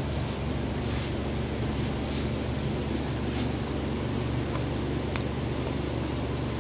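Steady low machine hum with a hiss over it, running evenly, with a few faint light ticks from handling the woofer's cone and voice coil.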